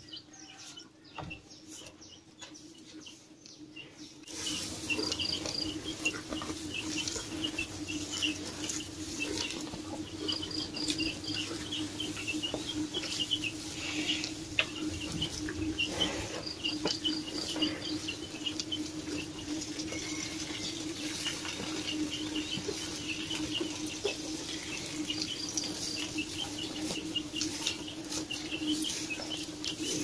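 Small birds chirping rapidly and without pause, with scattered rustles and clicks, over a steady low hum. The chirping and hum start about four seconds in. No cow calls.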